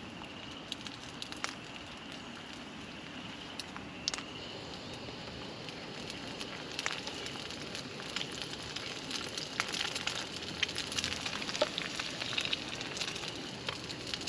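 An egg frying in oil in a small skillet on a small camp burner: a steady hiss with sizzling and spitting pops that grow busier and louder from about halfway through.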